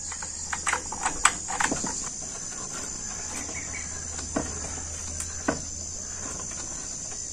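A steady, high-pitched insect chorus, with a quick run of sharp knocks and taps in the first two seconds and two single knocks later, from bamboo being handled on a bamboo ladder at the roof edge.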